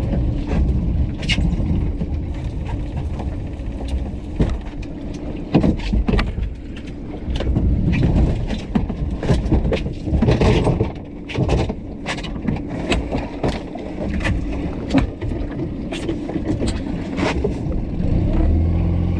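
A lobster creel being hand-hauled up on its rope over a plywood pot hauler with a wheelbarrow-wheel roller, then dragged aboard a small boat. Irregular knocks and clatters of rope, creel and gear against the hull run throughout, thickest around the middle as the creel comes over the gunwale. They sit over wind and sea noise and a faint steady hum from the outboard.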